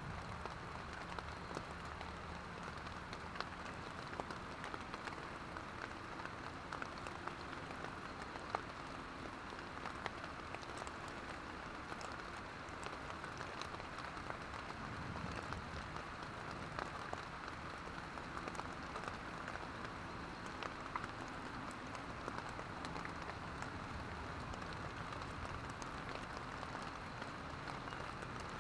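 Steady rain pattering on a tent: an even hiss dense with small drop ticks.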